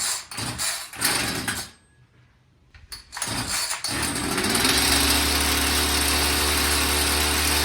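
Homelite two-stroke chainsaw being pull-started: a few short bursts of cranking, then the cold engine catches about three to four seconds in and runs steadily at a constant speed.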